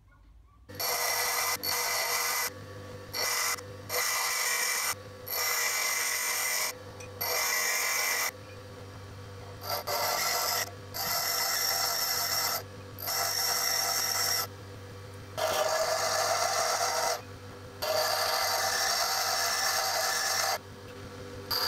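Bench grinder motor running with a steady hum while a small square steel tool bit is pressed to the grinding wheel in repeated passes. Each pass is a loud, hissing grind of one to three seconds, about a dozen in all, with the quieter motor hum between them.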